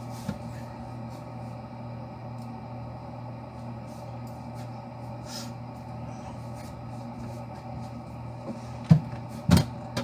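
Clunks and knocks of items and a drawer being handled in an open refrigerator: two sharp knocks about nine seconds in, over a steady low hum.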